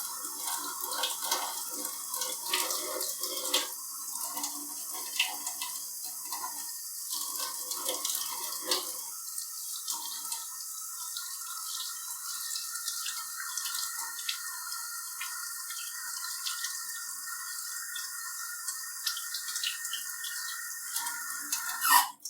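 Tap water running into a kitchen sink, with splashing and drips, then cutting off suddenly.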